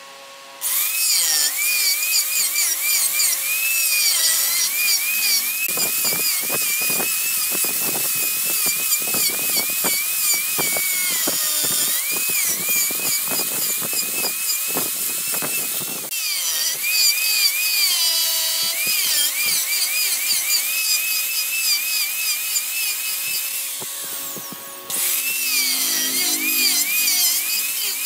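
Handheld electric angle grinder run against the wood of a turned ebony vase, a high whine that wavers up and down as it is pressed into the surface, over a steady hiss of abrasion. The sound starts abruptly under a second in and drops lower for a moment before picking up again near the end.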